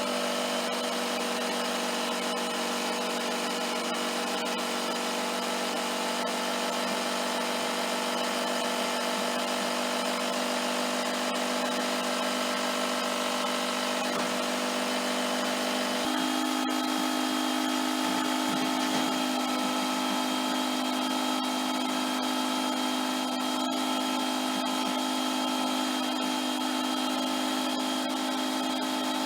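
Small electric tyre inflator's motor running steadily, pumping air into a wheelbarrow inner tube. It starts abruptly, and its hum shifts slightly in pitch about halfway through.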